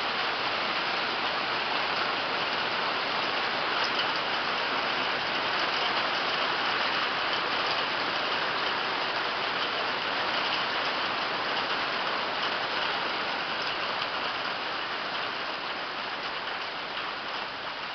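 Heavy hail of small, just over pea-sized stones pelting the ground in a dense, steady clatter of countless tiny impacts. It eases slightly near the end.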